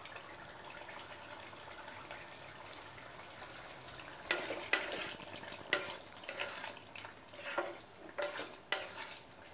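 A faint steady hiss, then from about four seconds in a spatula stirring the thick potato and soya-chunk curry in a kadai, with irregular clicks and scrapes against the pan.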